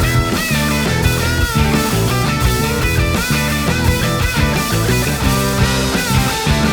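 Loud rock-style music with guitar over a moving bass line, playing steadily.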